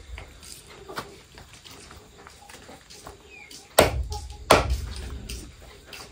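Two heavy blows, a little under a second apart, about four seconds in, with a fainter knock about a second in.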